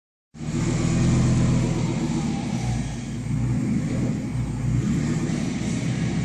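Coachmen Class C motorhome's engine running with its catalytic converter missing, giving a steady, low, raw exhaust note.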